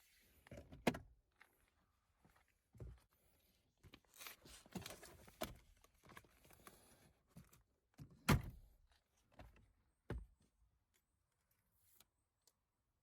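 Car interior trim being handled during a cabin air filter change: hollow knocks and thunks, the loudest a little past the middle, with scraping and rustling of parts between them.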